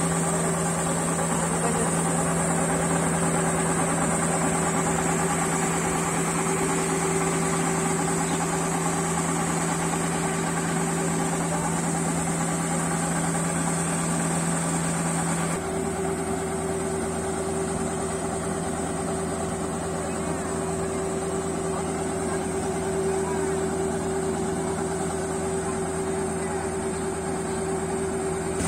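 Engine of a paddy-harvesting machine running steadily with a constant hum and a thin high whine; about halfway through the sound changes abruptly, with the low hum and whine dropping out while the engine carries on.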